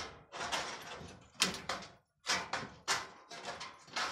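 Sheet-metal parts of a chicken nesting box scraping and knocking together as a metal bar is worked into place on the panels. There is a series of short scrapes, with a sharp knock about one and a half seconds in.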